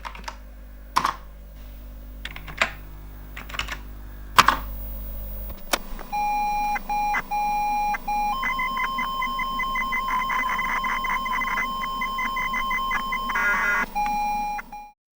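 Several sharp clicks, then from about halfway through a run of electronic beeps and steady tones: a repeated tone with short breaks, then fast pulsing beeps over held higher tones. All of it cuts off abruptly just before the end.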